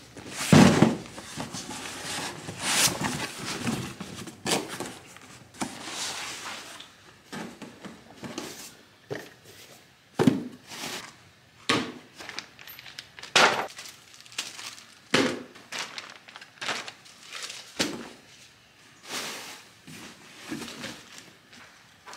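Packaged parts being handled and set down on a concrete floor: plastic bags crinkling and a cardboard box and other items knocking down, a string of separate clatters and rustles.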